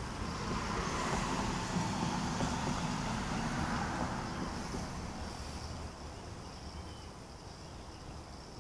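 A vehicle passing on the street: road and engine noise that swells over the first second, holds for a few seconds and fades away about halfway through, over a steady high insect buzz.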